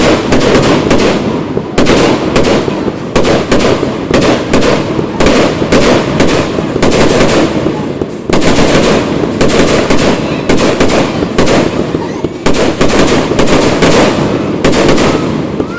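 Fireworks display: a rapid, continuous barrage of aerial shells bursting, the bangs overlapping one another over a steady rumble. It starts abruptly.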